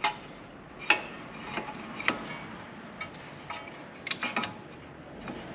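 Irregular light metallic clicks and clinks of a disc brake caliper and pads being handled and fitted, with a quick cluster of three about four seconds in.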